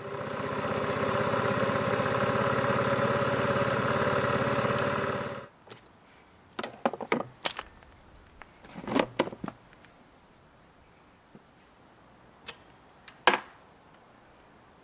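Suzuki Let's4G scooter's small single-cylinder four-stroke engine idling steadily, stopping abruptly about five seconds in. After it, a few scattered clicks and knocks.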